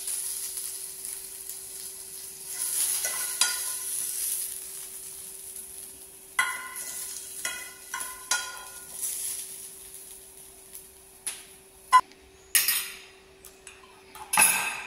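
Metal serving tongs and a fork clinking and tapping against a ceramic plate as food is served, in a string of short ringing clinks and a few sharp clicks. A steady high hiss and a faint hum run underneath.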